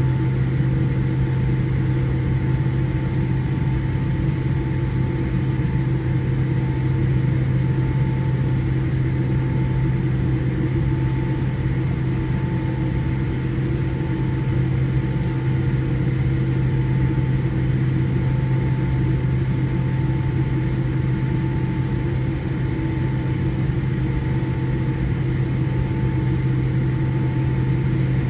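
Steady cabin drone of a Boeing 787-8 with its GE GEnx-1B engines idling while it holds before takeoff: a constant low hum with fainter steady whine tones above it.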